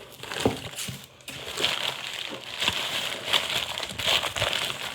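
Packaging crinkling and rustling in the hands as a parcel is opened, with irregular small clicks and crackles.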